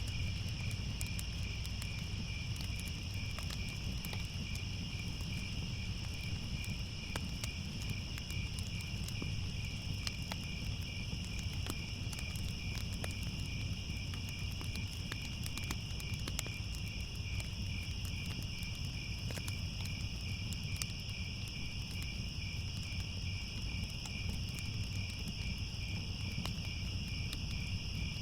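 A steady night chorus of crickets chirping over a low rumble, with scattered faint crackles like a fire.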